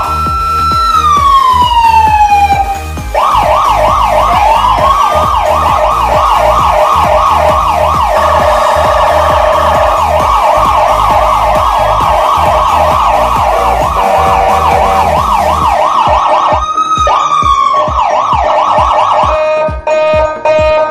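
Electronic siren: one slow rising and falling wail, then a fast yelp of about four pitch sweeps a second. A steady low drone runs underneath until near the end.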